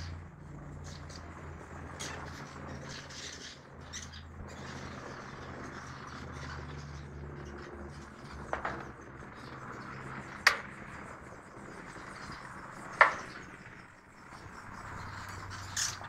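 Swiftlets twittering in short, high chirps, with three sharper, louder chirps in the second half, over a steady low hum.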